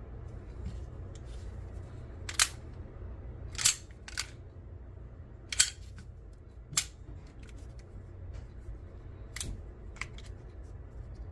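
About seven sharp mechanical clicks and clacks at irregular spacing, from a 9mm pistol being handled. They are too short and dry to be shots, more like slide, magazine or trigger action. A low steady hum lies underneath.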